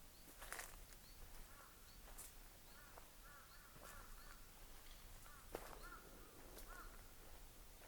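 Faint forest quiet with distant birds calling in short repeated notes, and a few soft crunches of footsteps on dry leaves on the trail.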